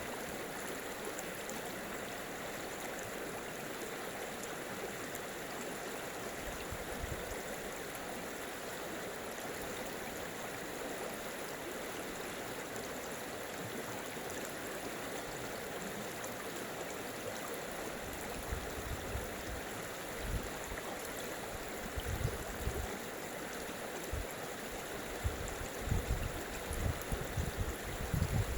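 Water of a stream flowing with a steady rushing. In the last third, irregular low thumps come and go under it, growing more frequent toward the end.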